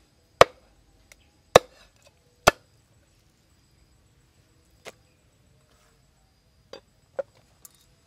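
Cleaver chopping raw bird meat on a chopping block: three sharp, heavy strokes about a second apart, then a few lighter knocks in the second half.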